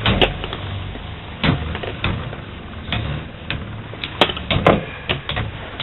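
Two Lightning L-Drago 100HF Beyblades spinning against each other in a stadium: a steady whir with sharp clacks at irregular intervals as the metal wheels collide.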